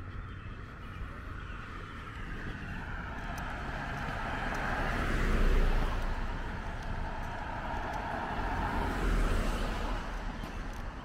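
Traffic on a town street: car and tyre noise swells to a peak about five seconds in as a vehicle passes, and swells again around nine seconds.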